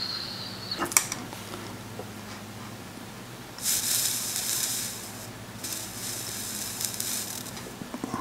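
Liquid no-clean flux sizzling under a soldering iron tip as a drop of solder is dragged along the pins of an STM32 chip: two hissing spells of a couple of seconds each, starting near the middle. A couple of light clicks come about a second in.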